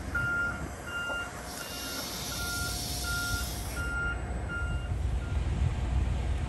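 Truck reversing alarm beeping about twice a second, dying away near the end, over low vehicle rumble. A hiss joins for about two seconds in the middle.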